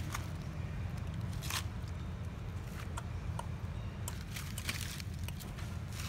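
Footsteps on dry leaf litter: scattered light crackles and crunches of dead leaves underfoot, over a steady low rumble.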